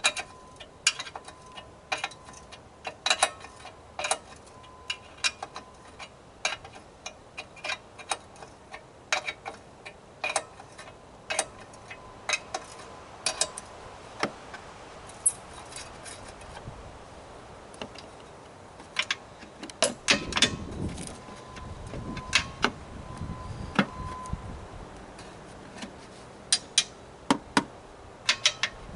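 Irregular sharp metallic clicks and clinks of hand tools on the air compressor's metal parts during teardown, about one or two a second. About two-thirds of the way in, louder handling and scraping noise joins them.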